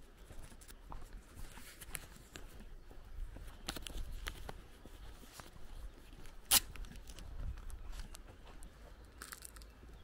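Footsteps crunching on a dirt road, heard as irregular crackly clicks, with one sharp, loud click a little past halfway.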